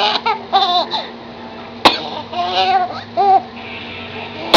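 A young child's high-pitched vocalizing in short laughing, babbling bursts, with two sharp clicks, one about two seconds in and one at the end.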